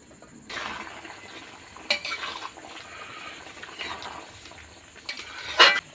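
Chicken and bamboo-shoot curry bubbling and sizzling in a metal wok, with a few sharp metal clinks against the pan, the loudest near the end.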